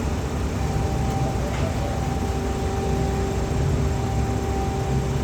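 Heavy diesel engine running steadily: a constant low rumble with a steady droning tone over it.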